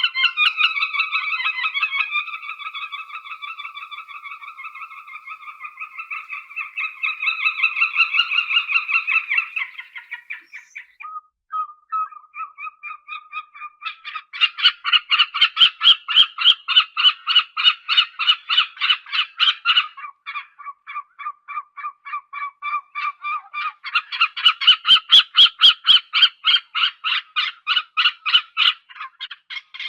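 Stork calls: a wavering, steady call for about ten seconds, then two loud runs of fast, rhythmic pulsing rattles with a quieter pulsing stretch between them.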